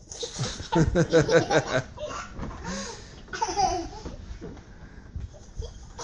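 People laughing: a burst of quick, rapid laughter in the first two seconds, then a few shorter laughs.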